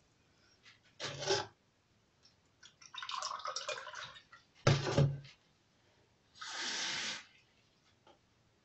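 Water poured from a glass into a plastic bowl of pickling brine, splashing in two separate pours about three seconds apart. Two short knocks come between them, about a second in and near the middle.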